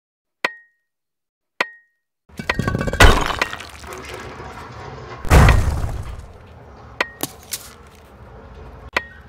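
Added pickaxe-mining sound effects: two sharp ringing clinks of a pick striking stone, then two loud crashes of breaking rock that each trail off, and a few lighter clinks near the end.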